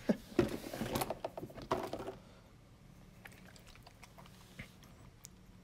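Clicking and rattling of small hard objects being handled for about two seconds, then quiet with a few faint ticks.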